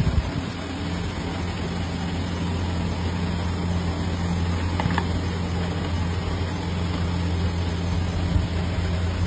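Steady machine hum from an electric motor running, with a faint click about five seconds in.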